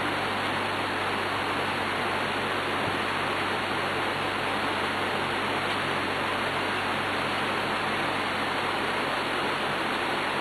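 Steady, even background hiss with a low hum underneath, unchanging throughout.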